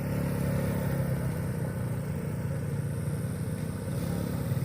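ATV engine running steadily, a low drone with rapid even pulsing.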